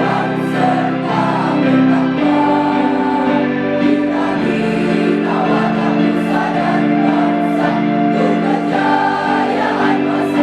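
A mixed choir singing in unison and harmony, holding long notes that change every couple of seconds.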